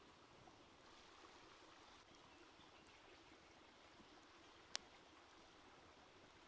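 Near silence with a faint steady stream hiss, broken by one sharp pop from the wood fire about three quarters of the way through.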